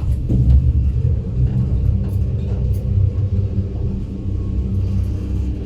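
2014 Stannah passenger lift travelling down between floors, heard from inside the car: a steady low rumble of the ride.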